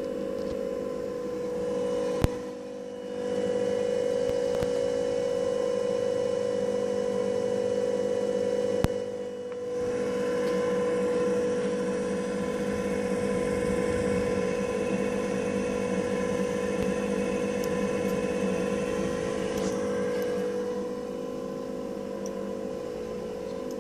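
Small electric fan of a PID-controlled ping pong ball levitation rig running steadily under PWM drive: a hum with a strong steady tone. It dips briefly twice, each time just after a sharp click, about two and nine seconds in.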